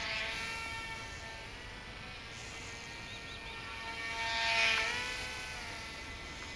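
The two small electric motors and propellers of a Silverlit X-Twin Turbo-Fury RC plane buzzing steadily in flight. The buzz grows louder as the plane passes close about four and a half seconds in, and its pitch drops as it goes by.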